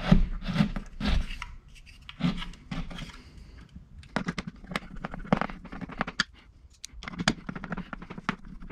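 Plastic garage door opener wall control being handled and fitted to the wall: irregular clicks, scrapes and rubs as the console is pressed into place and screwed down by hand.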